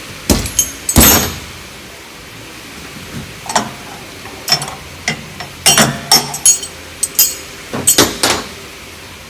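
A series of irregular knocks, clunks and rattles from equipment and boxes being handled and uncovered, with a cluster of sharp clunks near the start and more between the middle and near the end.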